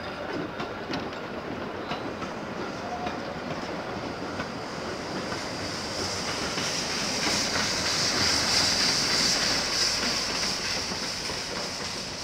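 Narrow-gauge train wagons rolling past, their wheels clicking over rail joints. Then the steam locomotive Spreewald passes with a loud hiss of steam blowing from its cylinders, loudest about two-thirds of the way through and fading near the end.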